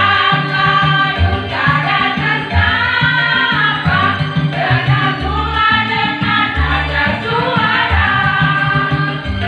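A song with a singer over a band, bass notes on a steady beat.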